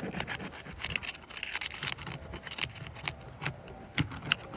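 Flat metal shingle tool prying under asphalt roof shingles to break their seal strips: irregular scraping with many small sharp clicks and cracks.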